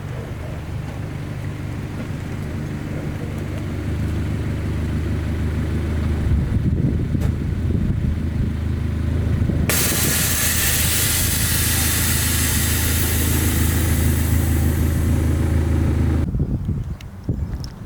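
Honda S2000's four-cylinder engine running with a steady low hum. About ten seconds in a loud hiss joins it for several seconds, then both cut off suddenly near the end.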